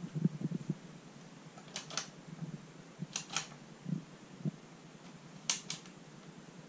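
Push-button keys on a Bang & Olufsen Beomaster 1000 receiver being pressed: three pairs of sharp clicks, with soft low thumps in between.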